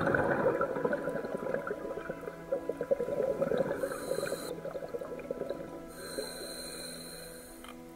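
A scuba diver's exhaled air bubbling out of the regulator underwater: a dense crackling burble for the first few seconds that thins out, over soft background music with held tones.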